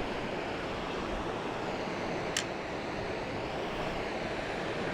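The South Platte River's water rushing steadily over its bed, an even whooshing wash. A single brief click about halfway through.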